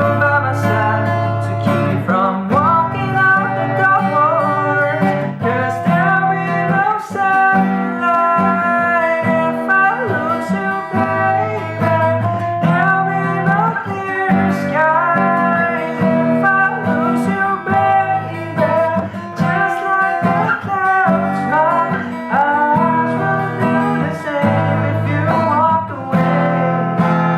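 Strummed acoustic guitar with a solo voice singing a slow pop ballad over it; the singing comes in about two seconds in.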